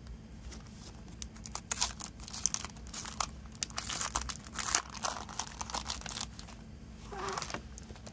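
Clear plastic shrink-wrap crinkling and tearing as it is peeled off a CD jewel case, in a dense run of crisp crackles. A softer rustle follows near the end.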